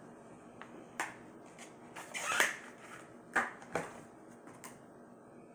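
A plastic phone case being handled and pressed onto a Stylo 4 smartphone: a click, a loud scratchy rustle a couple of seconds in, then a few sharp clicks as the case snaps into place.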